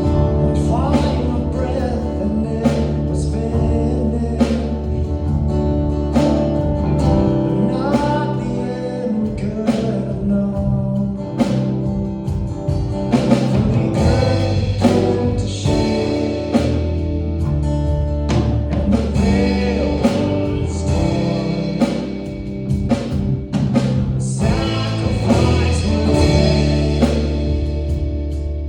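A live worship band playing a gospel song with singing over bass, guitar and a drum kit; the drums hit regularly under steady low bass notes.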